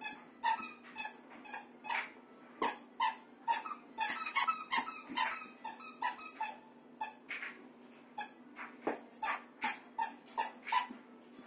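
A squeaky plush platypus toy squeaking again and again as a Siberian husky chews on it: short, irregular squeaks, with a fast flurry about four seconds in.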